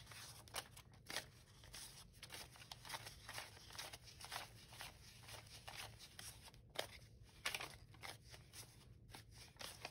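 Paper banknotes, a stack of one-dollar bills, rustling faintly as they are handled and squared up, with many short, irregular crisp snaps and crinkles.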